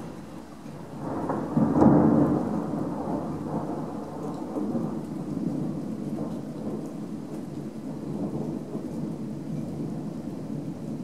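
Thunder: a rumble builds about a second in, is loudest around two seconds, then keeps rolling and slowly fades.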